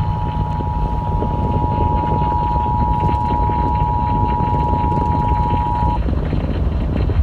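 Emergency Alert System attention signal: the steady two-tone alert held for about six seconds, then cutting off, over a loud rumbling hiss that carries on after it.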